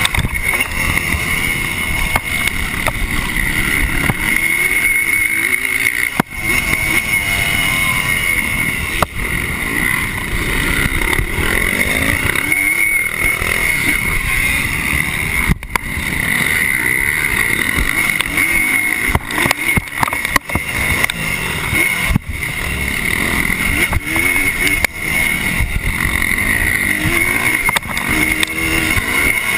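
1986 Honda CR250R's 250 cc single-cylinder two-stroke engine racing around a motocross track, heard from a camera worn by the rider. The engine note rises and falls with the throttle, with brief dips a few times as the throttle is shut.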